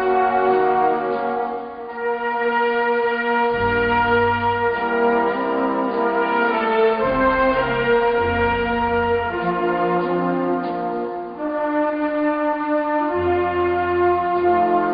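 Slow instrumental music of sustained brass chords, the harmony shifting every second or two with a bass line beneath.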